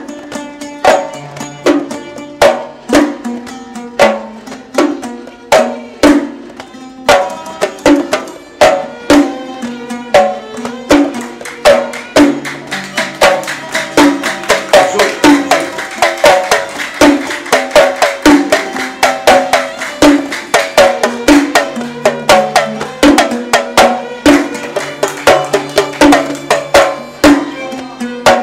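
Gulf sawt music played on oud and mirwas hand drums: plucked oud notes over a steady, even drum rhythm, growing busier and louder from about twelve seconds in.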